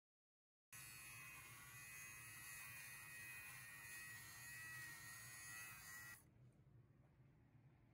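Handheld fabric shaver buzzing faintly and steadily as it is run over a knit coat to de-pill it. It starts about a second in and stops about six seconds in.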